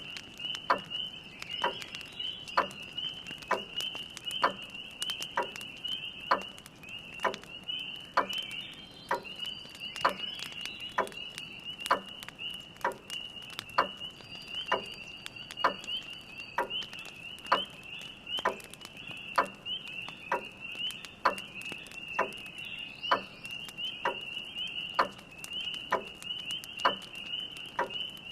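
Spring peepers calling in a dense, continuous high-pitched chorus. Under it a grandfather clock ticks evenly, about once a second, with faint crackling of a wood fire.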